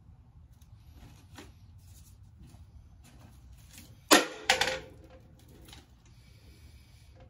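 Two sharp metallic clanks about half a second apart, the second leaving a short ring: a metal tool or part knocked or set down on a workbench, among faint handling clicks over a low steady hum.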